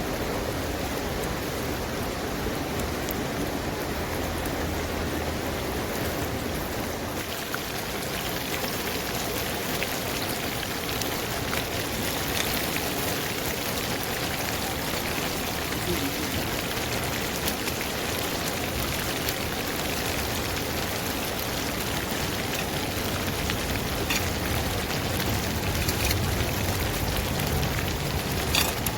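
Hot oil sizzling steadily as breaded chicken pieces deep-fry, with a few faint crackles and pops.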